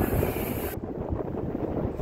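Wind buffeting the microphone, an uneven low rumble. A high hiss cuts off abruptly under a second in.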